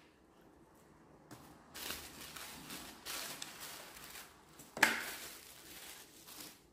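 Rustling of a cardboard box and a fabric dust cloth being handled as a small card case is unwrapped, starting about two seconds in, with one sharp click near the five-second mark.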